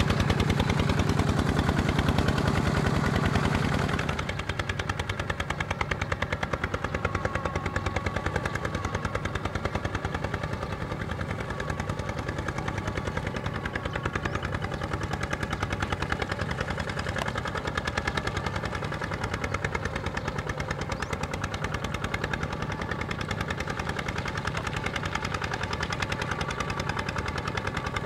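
Kubota ZT155 single-cylinder diesel engine of a two-wheel walking tractor running with a rapid, even stream of firing pulses. It gets quieter and less deep about four seconds in, then runs steadily.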